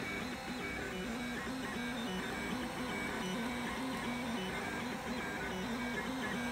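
3D printer's stepper motors whining in short steady tones that jump in pitch every fraction of a second as the print head moves continuously, printing a vase in spiral vase mode.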